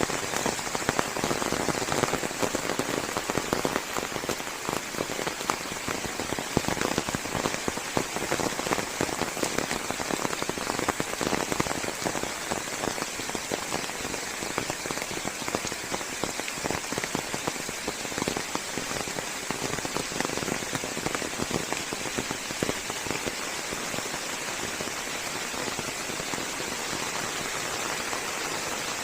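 Steady rain falling on forest leaves: a dense patter of countless drops, growing smoother and more even towards the end.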